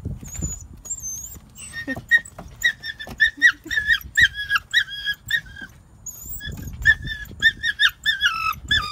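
Puppy whining in a rapid run of short, high-pitched whimpers, each dipping in pitch, about two or three a second. A low rumble at the start comes from the van's sliding door being opened.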